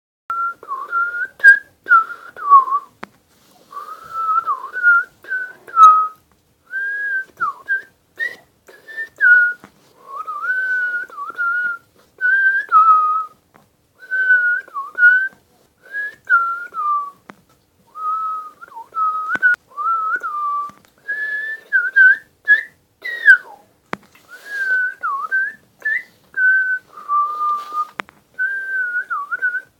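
A person whistling a tune in short, wavering phrases, with a faint breathy hiss under the notes and a few light clicks.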